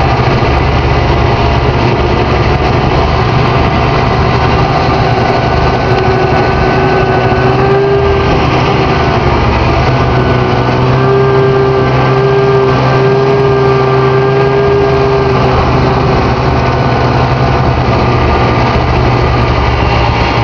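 Snowmobile engine running steadily under way, heard from the rider's seat. A higher whine comes and goes through the middle stretch.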